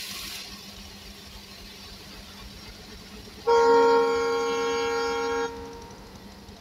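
Horn of a WDM3A diesel locomotive sounding one steady blast of about two seconds, starting about three and a half seconds in. It is a chord of several tones, sounded as the train departs.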